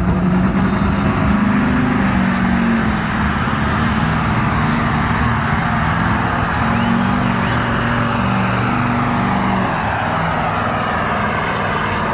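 Pulling tractor's diesel engine running flat out under heavy load as it drags the weight sled down the track, a loud steady run with a thin high whine above it.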